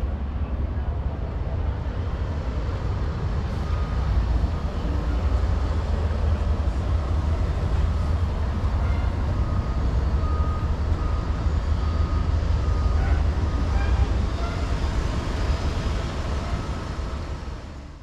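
Steady low rumble that fades out near the end.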